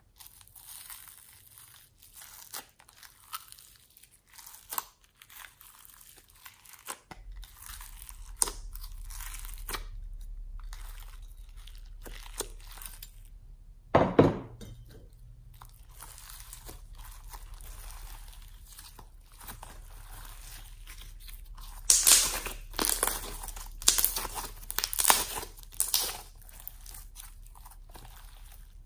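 Slime being squeezed and kneaded by hand: crinkly, crunchy crackling as fingers press slime topped with glitter flakes, then squelches and popping air pockets as a fluffy white slime is worked and stretched. There is a loud squelch about halfway through, and a close run of louder pops near the end.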